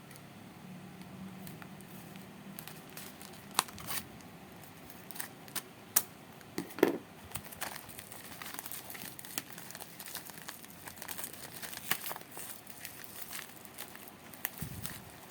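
Parcel packaging being handled, crumpled and torn open, with a crinkling rustle broken by several sharp snaps; the loudest come about 3.5, 6 and 7 seconds in.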